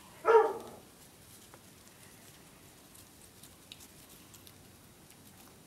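A dog barks once, a short bark about a quarter second in. After it there are only faint light clicks of paper links being handled.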